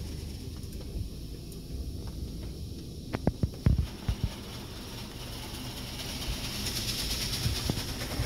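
Petit Accutrac 360i automatic car wash heard from inside the car's cabin. A steady low rumble runs throughout, with a quick cluster of loud thumps about three seconds in. Water spray hisses against the car, building up near the end.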